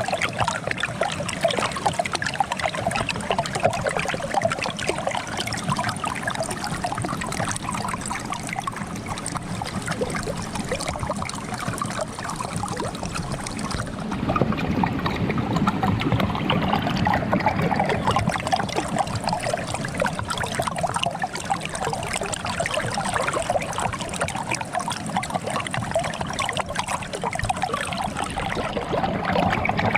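Water trickling and gurgling as it flows under frozen ice, with a steady stream of small bubbling splashes.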